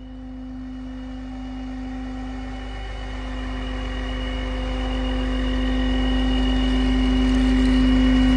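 Septic vacuum truck running its NVE vacuum blower: a steady mechanical hum with a strong, even tone over a low rumble, growing louder throughout.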